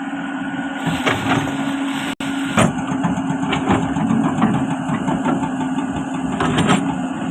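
Excavator diesel engine running at a steady drone, with scattered knocks and clanks from the machine working, and a sudden gap of a fraction of a second about two seconds in.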